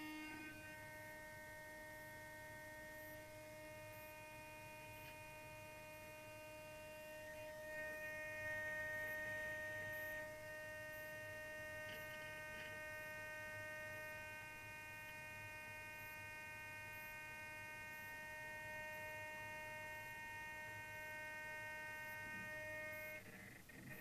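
Steady electronic whine made of several fixed high tones held together, a little louder about a third of the way in, cutting off suddenly near the end.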